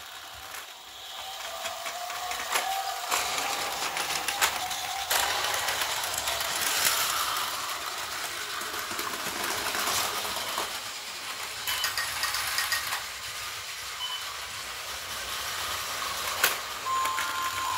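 Battery-powered Plarail toy train set and its motorised Action Station running: a steady plastic mechanical whirr and rattle, with sharp clicks every few seconds.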